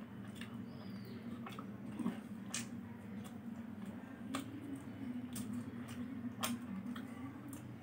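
Eating by hand: fingers picking and pulling apart fried chicken 65 on a steel plate, with scattered quiet clicks and wet squishing, over a low steady hum.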